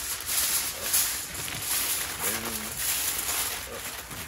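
Aluminium foil crinkling and crumpling as it is folded and pressed around a smoked pork shoulder, loudest in the first second.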